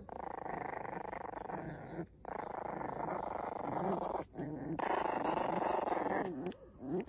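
Puppy growling over a bone it is gnawing and guarding from another dog, in three long rough bouts with short breaks between them.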